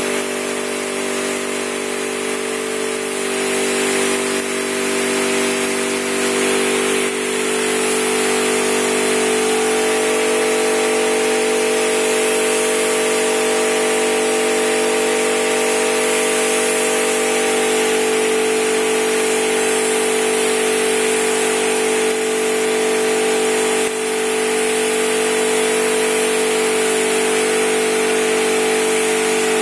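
Air spray gun hissing as clearcoat is sprayed, over the steady hum of a running motor, likely the paint booth's fan or an air compressor. The hum shifts slightly in pitch about 8 and 18 seconds in.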